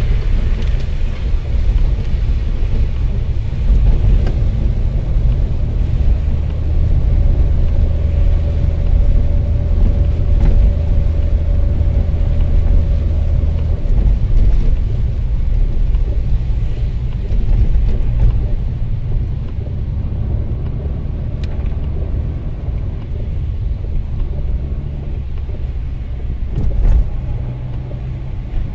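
Car driving on a rain-soaked road, heard from inside the cabin: a steady low rumble of engine and tyres with a hiss of water spray from the wet road. One brief louder moment comes near the end.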